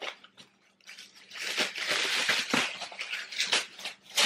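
Tissue paper rustling and crinkling as it is handled and stuffed into a gift bucket, starting about a second in and carrying on as a dense, irregular crackle.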